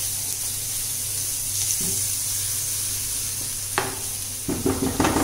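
Minced garlic sizzling steadily in hot oil in a nonstick frying pan as it is stirred with a silicone spatula. A few sharper scrapes and taps of the spatula on the pan come near the end.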